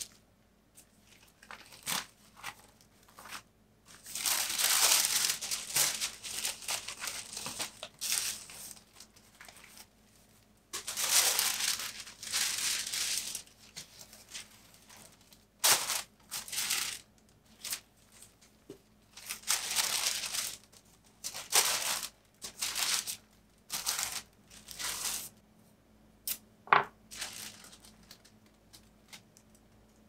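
Tissue paper rustling and crinkling as it is spread and folded around a wrapped art print, in bursts of a few seconds, with small taps and clicks between them.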